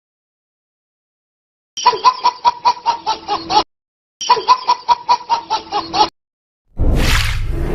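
Laughing sound effect: a quick cackling laugh of about six pulses a second, played twice with a short gap between. Near the end, a noisy whooshing transition effect starts.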